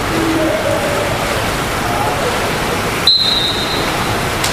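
Continuous splashing of water polo players swimming, with faint calls from players or the bench. About three seconds in, a single high referee's whistle blast lasts nearly a second.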